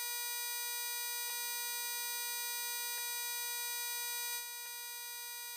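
A steady, buzzy electronic tone held at one pitch, with faint clicks about every second and a half to two seconds; it drops a step in loudness about four seconds in.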